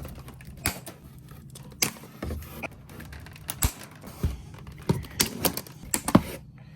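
Irregular sharp clicks, snaps and knocks from handling the packaging and cable ties holding an RC car roller in its box, a dozen or so, coming thicker in the second half.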